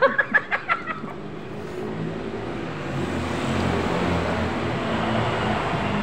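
A motor vehicle's engine running nearby, a steady low hum with hiss that builds up over a couple of seconds and then holds steady.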